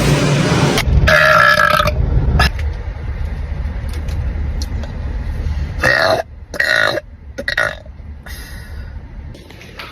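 A person burping loudly: a burst in the first second, then a long, low, drawn-out belch lasting a few seconds, and several short burps a little after the middle.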